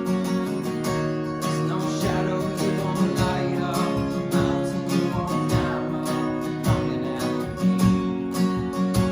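Acoustic guitar strummed steadily, playing a worship song.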